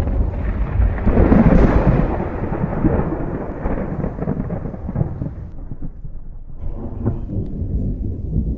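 Thunder rolling from a nearby lightning storm. A rumble swells to its loudest about a second in and dies away over the next few seconds, and a fainter roll follows near the end.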